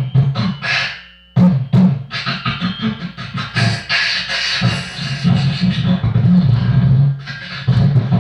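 Vocal beatboxing: a fast run of mouth-made kick and snare hits, a short break about a second in, then longer hissing hi-hat-like sounds over a low buzzing bass.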